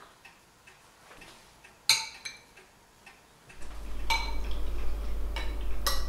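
Metal spoons clinking and scraping against ceramic bowls as people eat. A few scattered clicks and one sharp clink about two seconds in, then more frequent clinking from about halfway through.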